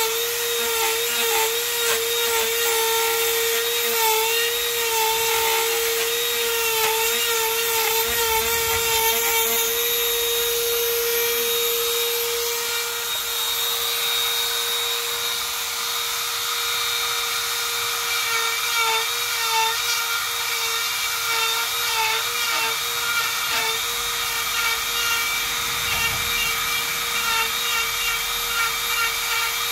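Dremel rotary tool running at high speed through a flex shaft, a steady high whine whose pitch wavers and dips as the bit grinds into wood, holding steady for a few seconds in the middle.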